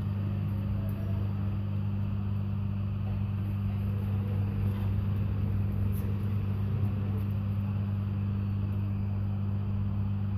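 A steady low electrical hum made of two tones an octave apart, unchanging in level, with a faint click about six seconds in.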